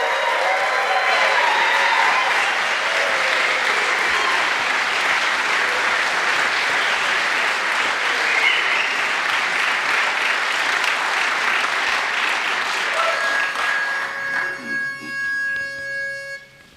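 Audience applauding, then dying away about fourteen seconds in.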